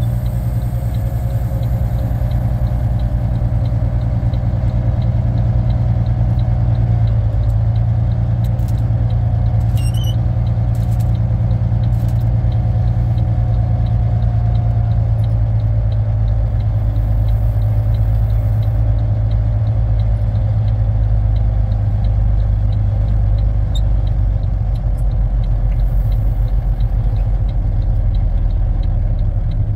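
Diesel engine of a Volvo VNL780 semi truck idling steadily, with no change in engine speed.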